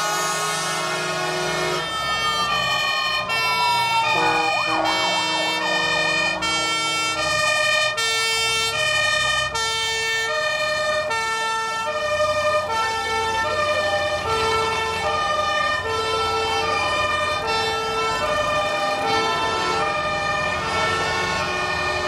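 Fire engine sirens: a wailing siren rises and falls over the first few seconds, then a two-tone hi-lo siren alternates steadily between two pitches, each held about half a second.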